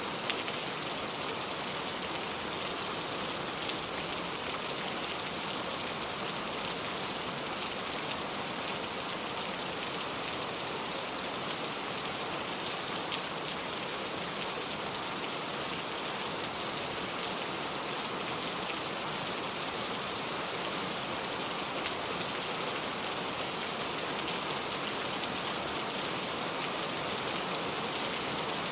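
Heavy rain pouring steadily, a dense even hiss with scattered drops ticking sharply on a surface.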